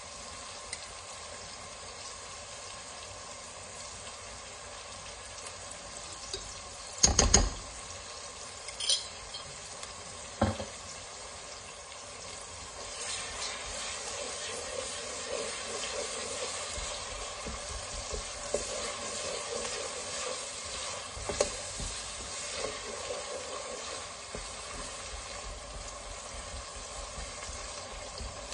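Diced onion and ginger garlic paste sizzling steadily in hot oil in a pot, with a few sharp knocks about a quarter of the way in. From a little before halfway a wooden spatula stirs through the mix, and the frying grows louder and busier.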